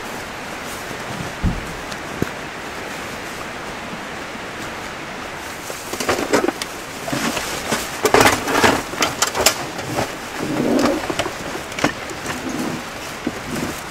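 Camping gear being loaded into an SUV's cargo area: rustling bags and short knocks of packed cases, in clusters from about six seconds in. Under it runs a steady rush of flowing stream water.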